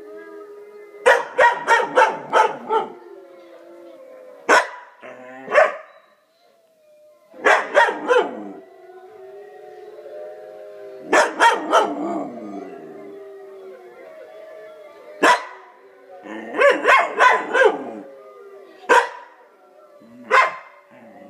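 Wolf howls, several voices held and overlapping, with a dog barking over them in repeated bursts, often several quick barks in a row. The barks are the loudest sounds.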